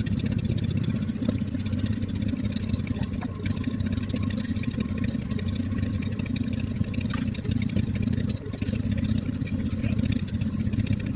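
1955 John Deere 420C crawler's two-cylinder engine running steadily with a fast, even low-pitched chug.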